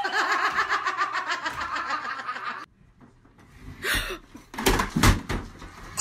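A person laughing hard in quick pulses for nearly three seconds, then it cuts off. About a second later a flat-screen TV topples off a dresser with a few heavy thumps and clatter.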